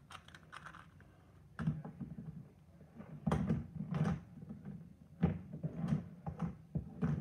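Puzzle packaging being handled: an irregular run of dull knocks and rubbing of box and plastic, about half a dozen louder knocks in the second half.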